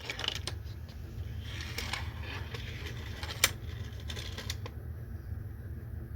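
Plastic clicking and rattling from a Hot Wheels toy track set, with one sharp click about three and a half seconds in, over a low rumble.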